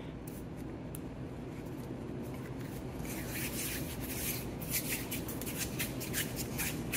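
Hands rolling two-part epoxy putty between the palms to mix it to one colour, a rhythmic dry rubbing of skin at about three strokes a second that starts about three seconds in. Before that it is quieter finger-kneading over a low steady hum.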